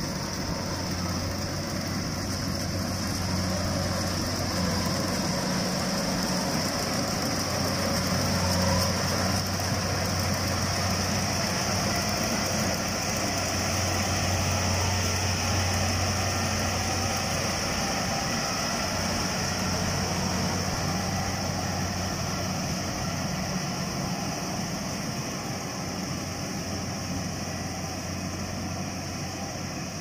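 Rice combine harvester running steadily while cutting and threshing, a low engine hum under a broad mechanical hiss. It grows louder as the machine passes close around the middle and eases off slightly near the end.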